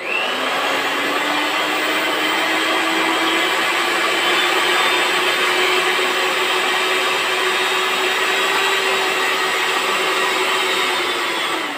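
Kenwood 250-watt six-speed hand mixer running with no load, its motor whine coming up to speed at once at switch-on and climbing gradually in pitch as it is stepped up through the speeds. Near the end it is switched off and the whine winds down.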